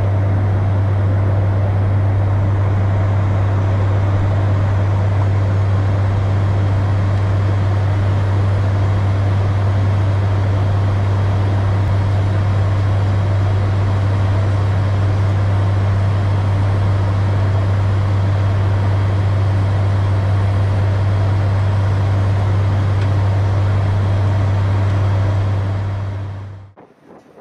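ATR 72 turboprop heard from inside the cockpit in cruise: a steady, loud low drone from the propellers and engines under a constant rushing noise. It cuts off sharply near the end.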